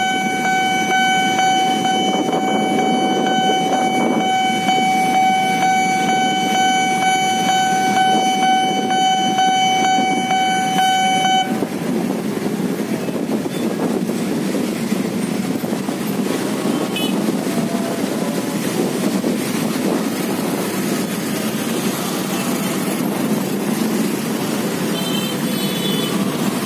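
Railway level-crossing warning alarm sounding a steady electronic tone over the noise of a KRL electric commuter train passing, the alarm cutting off suddenly about a third of the way through as the barriers lift. Motorcycle and car engines in the waiting traffic continue after it stops.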